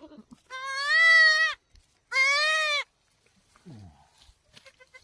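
Goat bleating twice: two long, high calls, the first about a second long and the second shorter.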